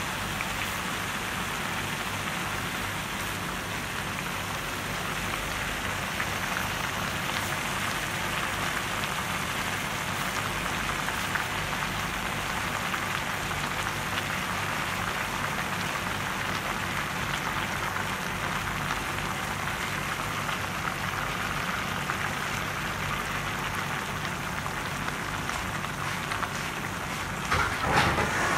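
Pork and vegetables sizzling and simmering in a wok, a steady crackling hiss. A brief louder burst of noise comes near the end.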